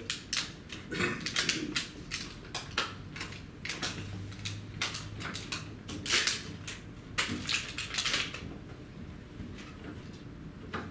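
Irregular crackling and clicking handling noises from hands working with small parts and packaging, stopping about eight and a half seconds in.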